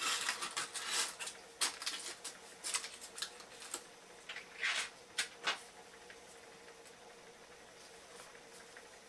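Aluminium foil crinkling as it is pressed and crimped over the top flange of a turbomolecular pump: a quick run of crackles for the first few seconds and a few more about five seconds in, then only soft handling. A faint steady hum runs underneath.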